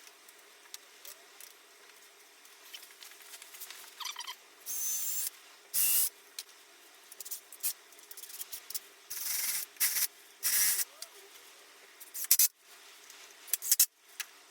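Clamps being fitted onto the wooden seat slats. There are intermittent short bursts of scraping and rubbing of metal and wood, and two sharp clicks near the end.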